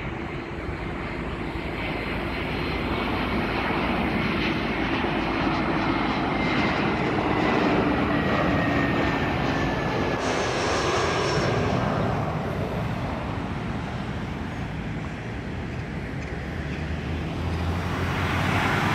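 Airbus A321 jet airliner on landing approach with gear down, flying low overhead: a steady jet engine rumble and whine that grows louder, its high tone sliding slowly down in pitch as it passes about ten seconds in, then fading. Road traffic noise rises near the end.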